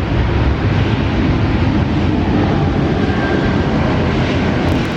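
Jet aircraft engines, a loud steady rush with most of its weight in the low end.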